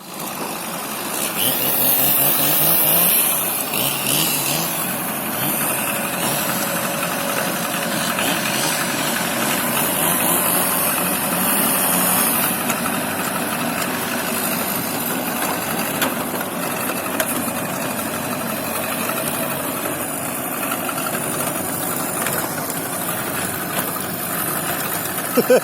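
Engine running steadily, its pitch wavering up and down.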